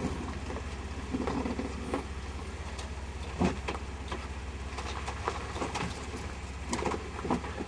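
Vehicle engine running steadily with a low rumble, with scattered sharp clicks and knocks over it; a louder knock comes about three and a half seconds in.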